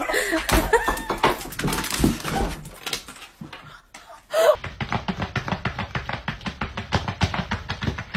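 Irregular knocks and thumps with a few short animal-like sounds. About halfway through, a cut brings in background music with a fast, steady beat.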